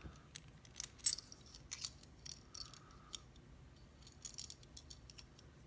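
Small metal keys on a ring and brass padlocks clinking lightly as they are handled: a scatter of faint clicks, the loudest about a second in.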